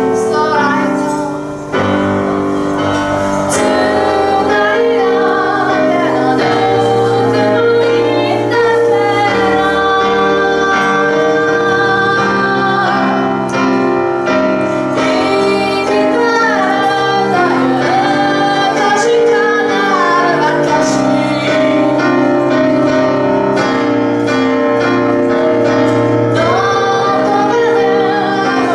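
A woman singing a slow melody while accompanying herself on a grand piano, with held piano notes and chords under the voice.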